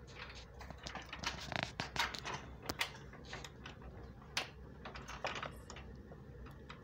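Irregular light clicks and taps of small metal hardware being handled, as nuts are threaded by hand onto bench-vise mounting bolts.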